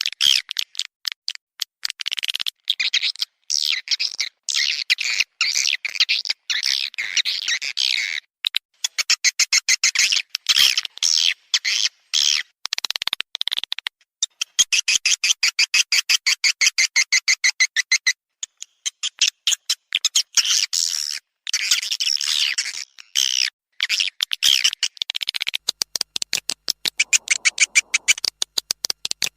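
Swiftlet lure-call recording: fast, high-pitched chirping twitters of swiftlets, run together in long rapid trains with brief pauses between them.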